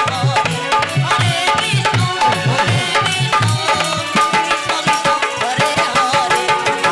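Kirtan music: hand drums beat a quick, steady rhythm under a wavering melody line.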